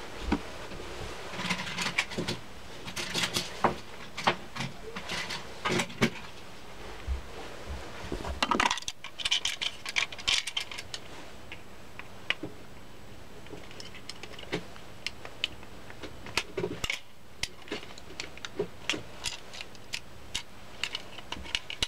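Small hard plastic toy-train parts being handled on a desk: irregular clicks and taps, with a spell of rustling about nine seconds in.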